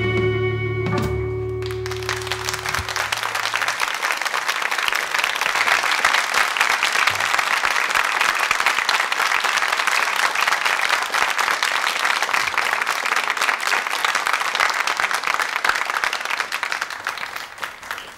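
A rock band's final electric-guitar chord rings out for the first second or two, then a studio audience applauds steadily, dying away near the end.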